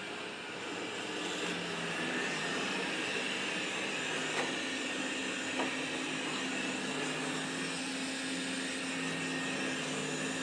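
Roborock E4 robot vacuum running steadily on carpet: an even whooshing with a low steady hum, and a couple of light taps about four and five and a half seconds in.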